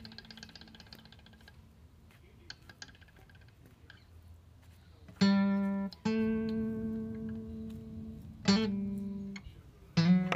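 Background music on a plucked guitar. It is faint for the first half, then loud notes are struck a second or two apart, each ringing out and fading.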